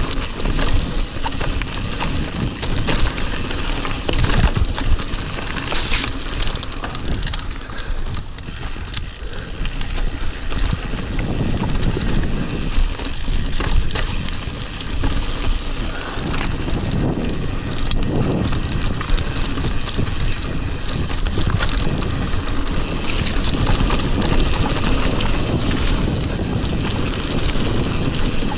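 Mountain bike riding fast down a dirt and gravel trail: wind rushing over the camera's microphone and tyres rolling, with frequent short clicks and rattles from the bike over bumps.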